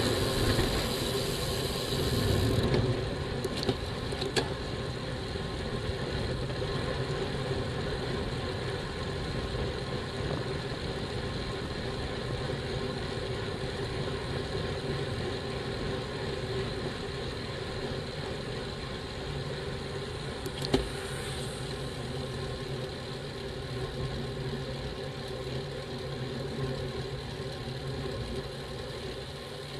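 Traffic noise from a garbage truck and a car right alongside a moving bicycle for the first few seconds, then a steady drone of riding noise from the bike-mounted camera. A few sharp clicks come through, two a few seconds in and one about two-thirds of the way through.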